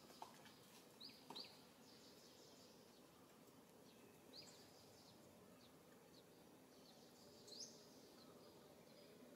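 Faint outdoor ambience with a few short, high, falling bird chirps, about a second in, near the middle and near the end.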